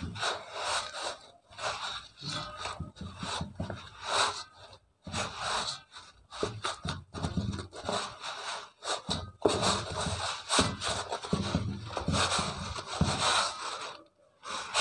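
Hands pulling and folding the flour-dusted sugar mass for lachha patisa, giving irregular rubbing and scraping strokes against a work surface.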